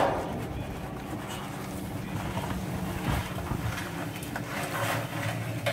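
Live crayfish being tipped off a stainless steel tray into a kazan of boiling water: a sharp knock at the start, then scattered scraping and clattering of shells over a steady low rumble.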